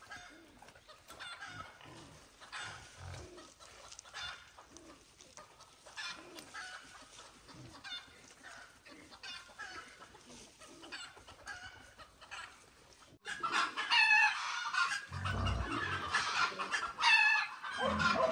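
Chickens clucking and calling: faint, scattered calls at first, then loud calls close by from about two-thirds of the way in.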